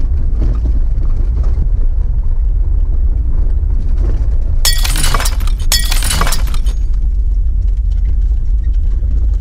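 Jeep Wrangler driving on a gravel forest road: a steady low rumble of engine and tyres. About five seconds in come two loud crackling crunches, each just under a second long, one right after the other.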